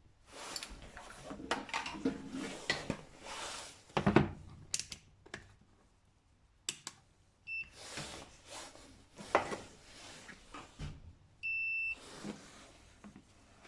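Multimeter continuity tester beeping as its probes test a new tractor starter switch: a very short beep about halfway through, then a half-second beep near the end. Clicks, rustling and light metal clatter from handling the switch and probes run throughout.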